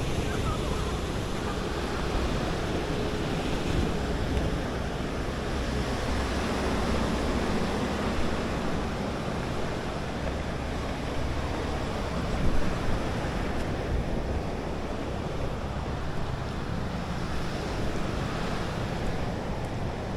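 Sea surf washing and breaking on a sandy shore, with wind buffeting the microphone and a brief knock about twelve seconds in.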